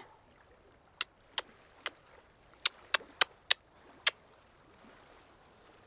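A woman giving a string of close-up kisses: about eight short kiss smacks between one and four seconds in, several in quick succession.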